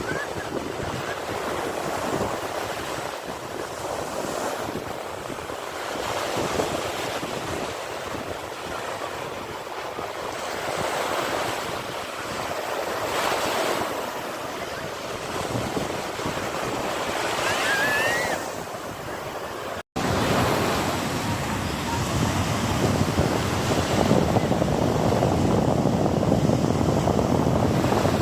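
Sea waves breaking and washing ashore, the surf swelling and fading every few seconds. After a brief cut about two-thirds of the way through, the surf is louder and steadier.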